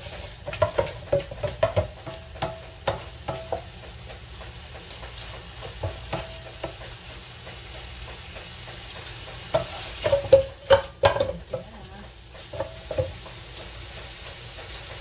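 Wooden spatula scraping and knocking against a nonstick wok as sliced meat is stir-fried, over a steady sizzle of frying. The stirring comes in bursts, busiest in the first few seconds and again about ten to eleven seconds in, and stops near the end while the sizzling goes on.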